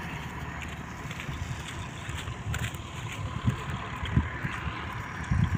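Wind buffeting the microphone in irregular low gusts, over a faint, steady distant engine hum.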